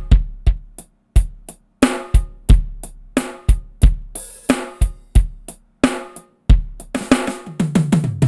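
Roland SPD-20 digital percussion pad struck with drumsticks, playing its preset drum-kit samples: a steady beat of kick drum and snare hits, about two a second. Near the end it ends in a quick run of hits falling in pitch, like a tom fill.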